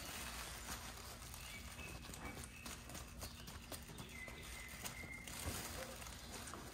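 Faint, irregular rustling and light taps from a cat's fabric play tunnel as a cat moves inside it and paws at a fluffy wand toy.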